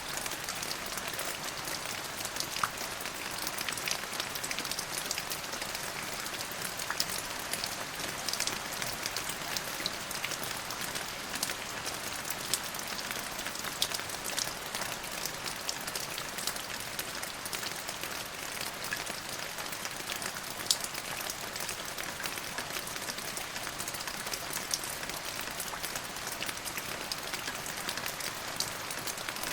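Steady rain falling on a hard surface, a continuous hiss with many close, sharp drop impacts.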